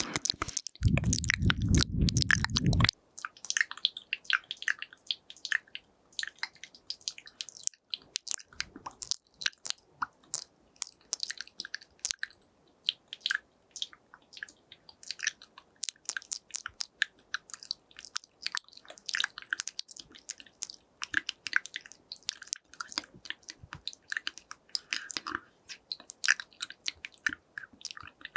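Close-miked ASMR mouth sounds: many short, soft, wet clicks and smacks of tongue and lips, irregular and quick. A fuller, louder rustle fills the first three seconds before the clicks take over.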